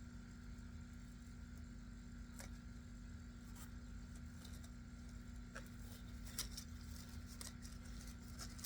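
Faint scattered clicks and light rustles of a small packaging bag being handled and opened, with more of them in the second half, over a steady low electrical hum.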